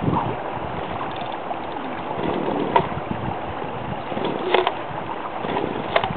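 Chainsaw engine running steadily, with three sharp clicks about three, four and a half and six seconds in.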